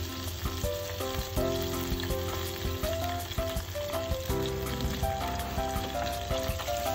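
Battered pieces of meat deep-frying in a saucepan of hot oil, a steady sizzle with small crackles, under background music with a slow melody of held notes.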